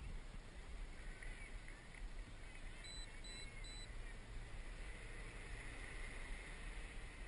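Faint whir of an XAircraft X650V-8 multirotor's propellers in flight, swelling about five seconds in as the craft comes closer overhead, over a low rumble. In the middle come three short high beeps, evenly spaced.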